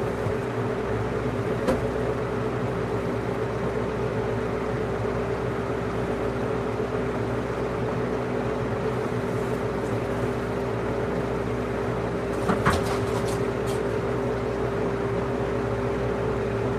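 Steady mechanical hum with a constant low tone, broken by a faint click about two seconds in and a few more about twelve seconds in.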